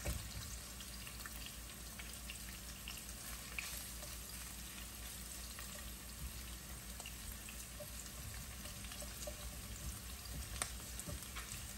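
Chopped garlic and galangal sizzling in oil in a nonstick frying pan: a steady, quiet sizzle as they are stirred with a silicone spatula, with a few faint taps of the spatula against the pan.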